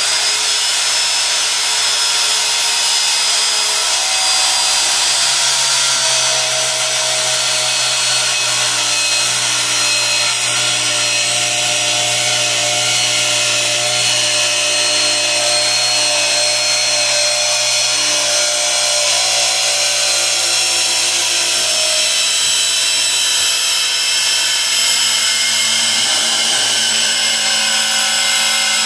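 Circular saw cutting through a solid-wood butcher-block slab, running steadily under load with a continuous whine. It is fitted with a dull general-purpose blade rather than a finishing blade and is being fed slowly.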